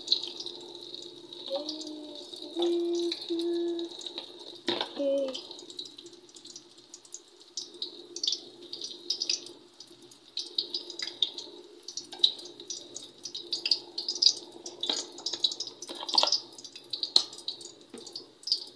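Egg-coated eggplant (tortang talong) frying in oil in an aluminium wok: crackling and popping that grows denser in the second half.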